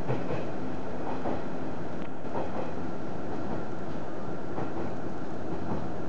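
Running noise inside a KiHa 110 series diesel railcar travelling at speed: a steady rumble of the engine and the wheels on the rails, with a few faint clicks of the wheels over rail joints.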